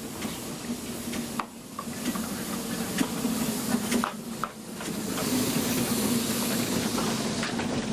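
C2 class 0-8-0 narrow-gauge steam locomotive rolling slowly past at close range, steam hissing from around its cylinders, with a few sharp knocks. The hiss grows louder about five seconds in.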